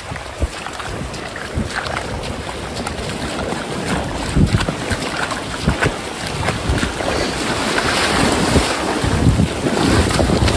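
Wind buffeting the microphone over small surf waves breaking and washing up the sand, the wash swelling louder in the second half.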